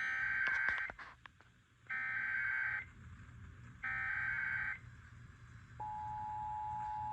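Emergency Alert System SAME header: three bursts of digital data noise, each about a second long and about a second apart. About six seconds in, the steady two-tone EAS attention signal begins. Here it opens a severe thunderstorm warning broadcast over FM radio.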